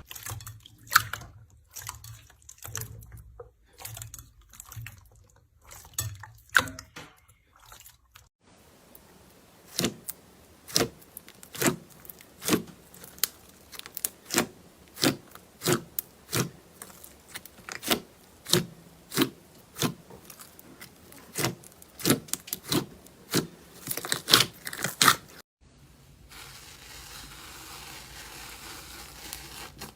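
Slime and pop-it toy sounds: crackly, squishy handling for the first several seconds, then a long run of sharp pops about two a second. A steady faint hiss takes over near the end.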